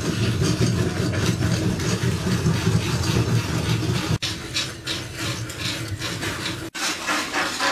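Bamboo rat gnawing a strip of split bamboo with its incisors: a rapid, steady rasping crunch very close to the microphone, breaking off briefly about four seconds in and again near the end.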